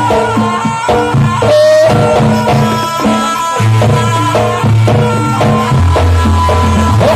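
Loud music for a rampak barong performance, played over a big sound system: drums and percussion, quick melodic notes and a heavy bass line.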